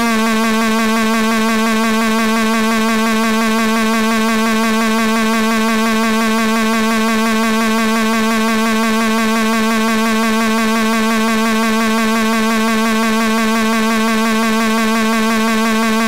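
A synthetic text-to-speech voice holding a drawn-out 'hmmm' as one loud, steady hum at a single unchanging pitch, with a slight buzzy wobble; it starts abruptly.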